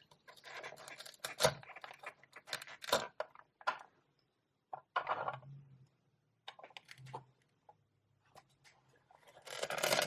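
Velcro halves of toy play food ripping apart as pretend eggplants are cut with a toy knife. Several short rasps and clicks come first, then a longer, louder rip near the end.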